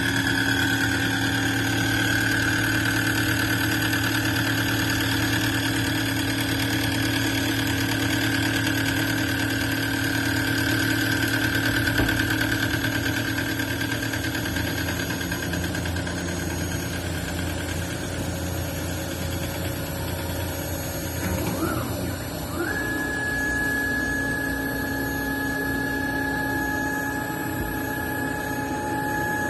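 CNC machine running, its motors giving a steady hum under a whine. About two-thirds of the way through, a higher whine quickly ramps up and then holds steady until near the end.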